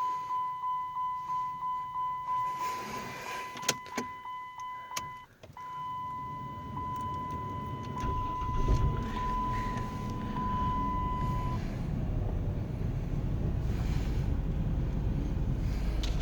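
Dodge Grand Caravan's warning chime pinging about twice a second, with a couple of sharp clicks about four seconds in. About eight seconds in, the 3.8-litre V6, now breathing through a short ram intake with a cone filter, cranks, starts quickly and settles into a steady idle.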